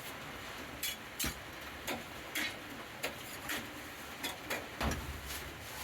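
A series of sharp taps, about two a second and unevenly spaced, with a heavier knock about five seconds in.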